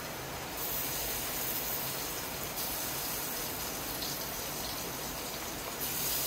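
Onions and ginger-garlic paste sizzling in hot oil in a cooking pot, a steady hiss.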